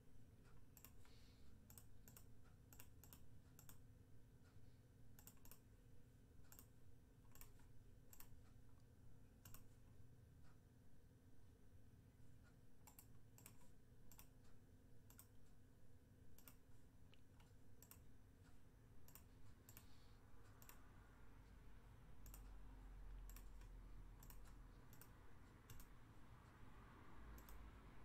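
Faint, irregular clicking of computer keyboard keys and a mouse, at times several clicks a second, thinning out in the last few seconds. A soft low rumble comes in near the end.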